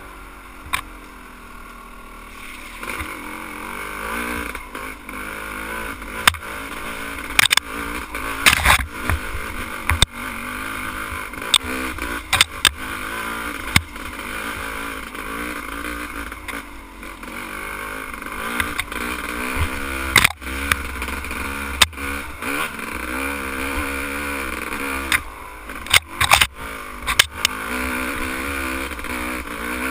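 Dirt bike engine running and revving up and down as it rides over rough ground, with many sharp knocks and clatters from the bike jolting over the bumps.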